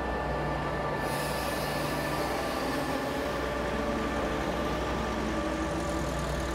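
Traffic on a busy city avenue: a heavy vehicle goes by with a steady low hum, and a hiss of noise comes in about a second in.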